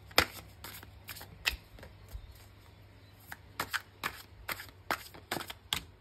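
Tarot cards being shuffled by hand: irregular sharp card snaps and clicks, with a short lull in the middle. Near the end several cards spill out of the deck onto the table.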